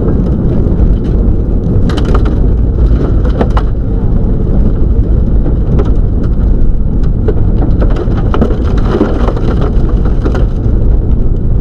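Subaru Legacy rally car at speed on a wet gravel stage, heard from inside the cabin: loud engine and road noise with a constant rattle of gravel and stones striking the underbody and wheel arches.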